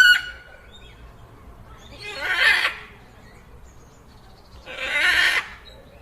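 Dinosaur creature sound effect made from animal calls: the tail of a high, whinny-like call at the start, then two harsh, breathy calls about two and a half seconds apart.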